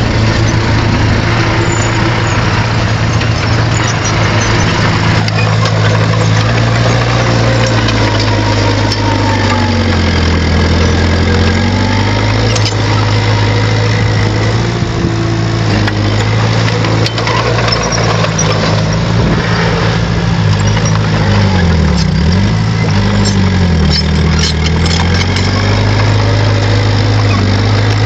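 Bulldozer's diesel engine running steadily. Its note dips and recovers a few times, about a third of the way in and twice near the end, as the engine takes load pushing soil.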